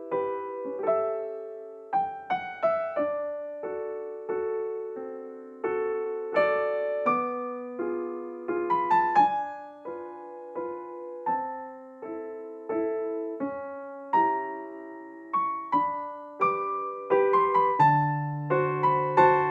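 Background piano music: slow, gentle chords and melody notes, each struck and left to fade.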